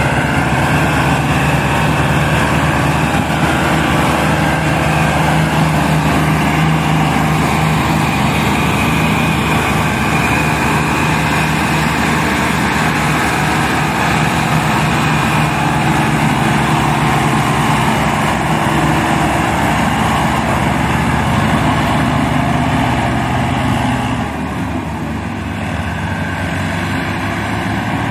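Ford tractor's diesel engine running hard and steady, straining to pull a heavily loaded sugarcane trolley through soft ground. The sound gets a little quieter near the end.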